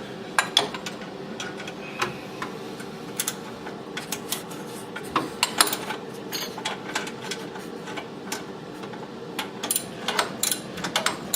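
Hand tools working on exhaust fasteners: irregular metallic clicks, taps and clinks, bunched in a few busy spells, over a steady low hum.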